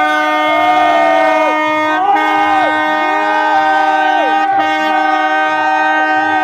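Wind instruments sounding a long held note, with other notes bending and sliding above it.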